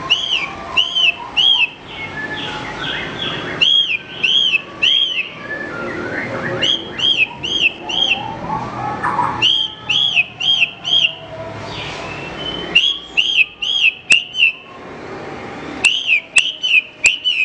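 Javan bush lark (branjangan) singing: bursts of three to five loud, repeated arched whistled notes, with softer, busier chirps and trills between them. A few sharp clicks near the end.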